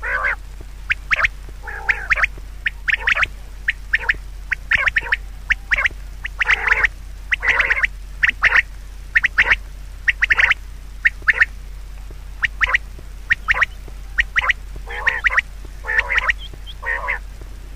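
Birds calling over and over in short calls, one to three a second, over a steady low hum.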